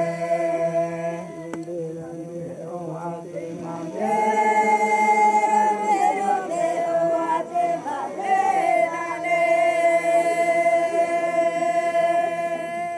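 A group of Noke Koi men and women singing a chant together without instruments, in long held notes. The melody steps up to a higher held note about four seconds in, then steps back down over the next phrases.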